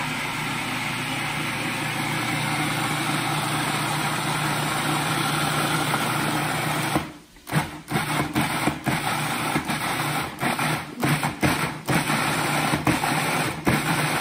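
Cuisinart food processor motor running steadily as it chops onion, garlic, ginger and chili into a paste. About halfway through it stops, then is run in a quick series of short pulses.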